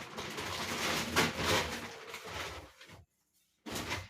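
Rustling and handling of plastic shopping bags and grocery packaging, an uneven crinkling noise. It cuts to dead silence for about half a second a little after three seconds in, then resumes briefly.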